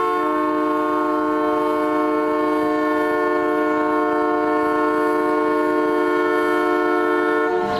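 A horn sounding one long, steady chord of several notes for nearly eight seconds, starting and stopping abruptly.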